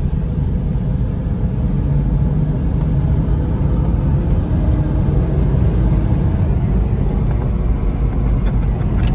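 Cabin noise of a Volkswagen Touareg driving at highway speed: a steady low rumble of engine and road, getting a little louder as the car is pushed to pick up speed.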